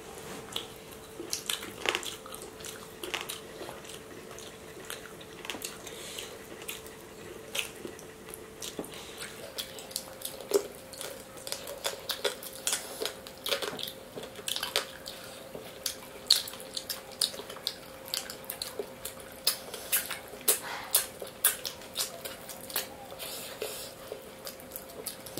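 Close-miked eating sounds of two people chewing biryani rice and mutton by hand: wet lip smacks and mouth clicks, sparse at first and more frequent from about ten seconds in, over a faint steady hum.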